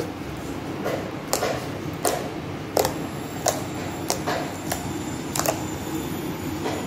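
Thick slime mixed with air-dry clay and lotion being pressed and poked with fingers on a hard surface, giving sharp popping clicks about one or two a second over a steady low background noise.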